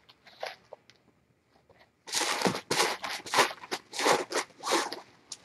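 A kitten scratching in granular cat litter on a plastic-backed pee pad: a few faint scuffs, then from about two seconds in a quick run of about eight crunching, rustling scrapes lasting some three seconds.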